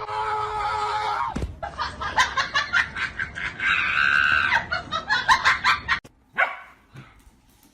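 A pet animal calling: a held, pitched call that drops sharply about a second and a half in, followed by a few seconds of clicks and knocks with a second call, then an abrupt cut about six seconds in.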